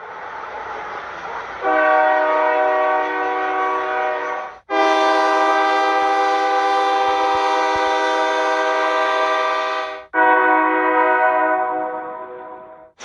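Locomotive air horns sounding in three sustained blasts one after another, each a steady chord of several notes. The first comes in about two seconds in, the longest runs from about five to ten seconds, and the last fades away near the end, each cut off abruptly at the next.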